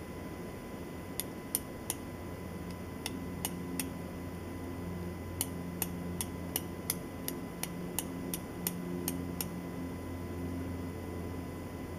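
Steel striker scraped down a flint to throw sparks onto char cloth, making sharp metallic clicks. There are three strikes about a second in, three more around three seconds in, then about a dozen in quick succession at roughly three a second, ending about nine seconds in. These are the first strikes of an attempt to light a fire with natural tinder.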